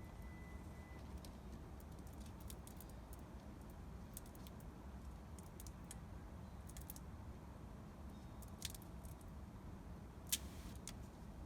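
Faint, scattered light clicks and metallic ticks of a hand tool working at the soldered tabs of a lipo battery pack, over a low steady hum, with one sharper click about ten seconds in.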